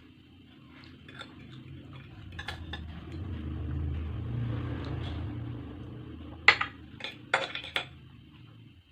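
Eating utensils clinking several times against a bowl or plate, a few sharp clinks close together in the second half. Under it, a low rumble swells and fades.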